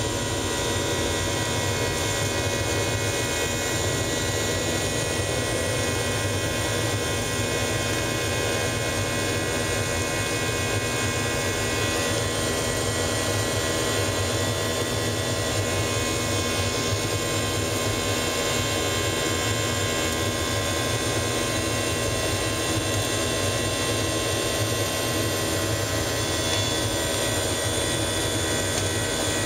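Boeing 737-800's CFM56 jet engines at high power during the climb-out after take-off, heard from inside the cabin. A steady rush of engine and air noise carries constant high whining fan tones, with no change in level.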